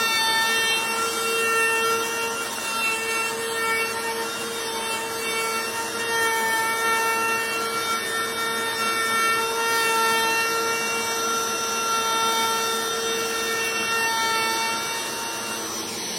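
A machine running steadily, with a constant whine over a rough, scraping noise.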